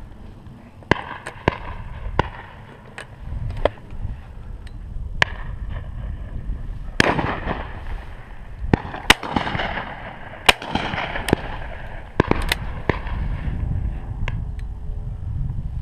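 Shotguns firing along a line of guns: a string of sharp reports, most of them distant, with a few louder, closer shots in the middle, each trailing off in an echo.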